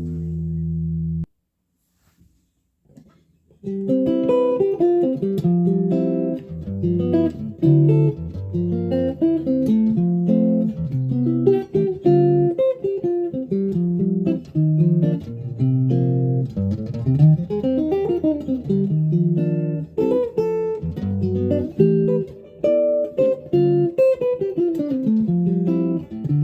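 Guitar: a held chord is cut off about a second in, then after a short pause a continuous stream of fast single-note lines and scale runs is played, rising and falling in places.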